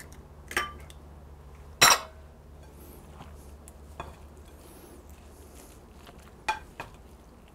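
A wooden spoon stirring a thick, chunky filling of diced cheese, ham and salami with raw eggs in a glass bowl: quiet scraping, with a few sharp clinks against the glass, the loudest about two seconds in.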